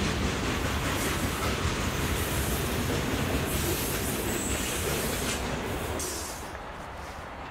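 Freight cars of a CN train rolling past over a steel girder railway bridge: steady wheel rumble and clatter on the rails, with a brief high wheel squeal about four seconds in. The sound drops quieter about six seconds in as the last cars pull away.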